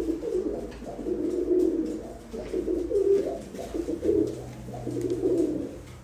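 Iraqi pigeon cooing, a run of repeated low coos about one a second.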